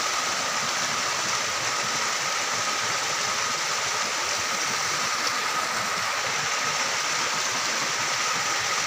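Steady outdoor night background: an even hiss with a faint, thin high tone running through it and no distinct knocks or voices.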